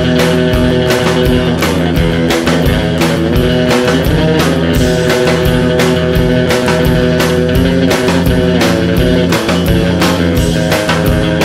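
Rock music with guitar and a drum kit keeping a steady beat.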